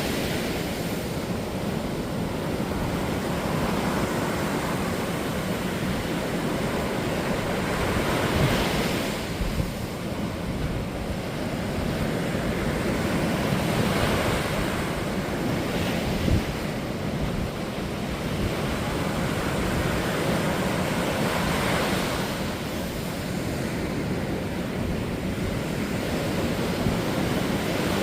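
High sea waves breaking on a beach: a continuous wash of surf that swells as a wave crashes every few seconds.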